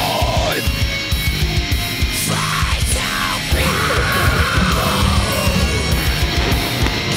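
Loud heavy metal music with rapid pounding drum beats.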